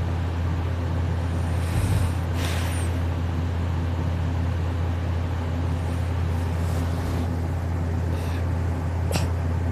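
A steady low hum runs throughout, with a brief soft low noise about two seconds in and a sharp click near the end.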